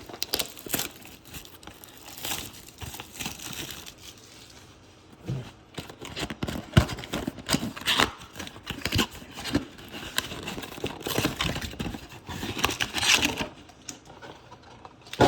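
Plastic trading-card packaging being torn open and crinkled: a Score blaster box's wrapper and card pack wrappers ripped and handled, irregular crackles and rustles throughout.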